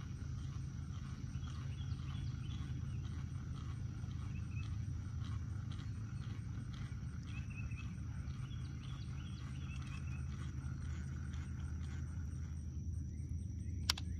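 Lake-side outdoor ambience: a steady low rumble with faint, repeated wild animal calls over it, and a thin high steady whine that stops near the end. A single sharp click comes just before the end.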